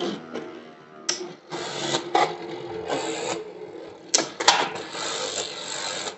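Two Beyblade spinning tops whirring in a clear plastic stadium, with several sharp clacks as they strike during the battle.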